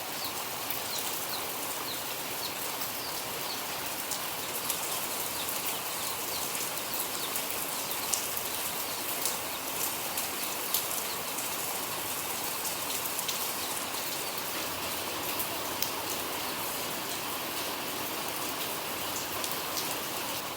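Steady rain falling, an even hiss with scattered drops pattering and ticking on surfaces.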